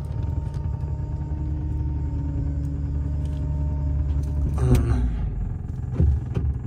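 Steady low rumble of a Toyota Camry driving slowly, heard from inside the cabin: engine and road noise. A couple of brief, louder sounds break in about two-thirds of the way through.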